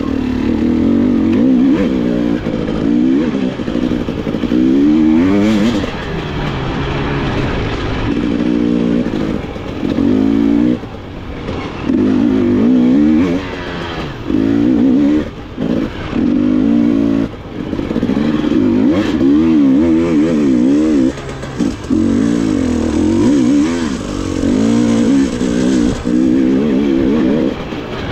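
Off-road motorcycle engine under race throttle, revving up and falling off over and over. Short dips come every second or few where the throttle is closed or a gear is changed.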